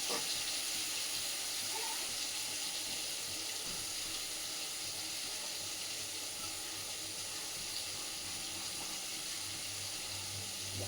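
Water running steadily from a kitchen tap, rinsing the last of the ground mustard paste out of its container.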